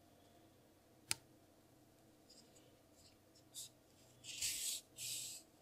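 Faint handling of a metal yarn needle and worsted acrylic yarn being sewn through crochet stitches: a sharp click about a second in, then two short scratchy rasps near the end as the yarn is drawn through the fabric.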